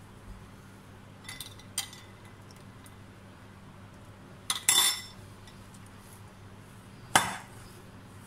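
Metal spoon clinking against a glass mixing bowl: two light clinks early, a louder rattle of clinks about four and a half seconds in, and one sharp clink near the end, over a faint steady hum.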